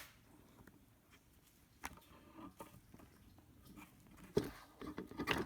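Scattered light clicks, taps and handling noises as a diesel heater's new glow plug is screwed in by hand, with a few louder knocks near the end.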